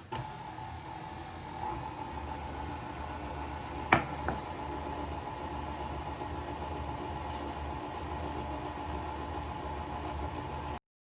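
Electric mixer motor running steadily, with a held whine, as it mixes flour into the donut dough. There is one sharp knock about four seconds in, and the sound cuts off suddenly near the end.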